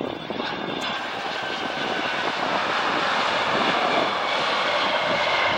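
Airbus Beluga's General Electric CF6 turbofan engines running as the freighter rolls out on the runway just after touchdown: a dense jet noise with faint whining tones that grows steadily louder.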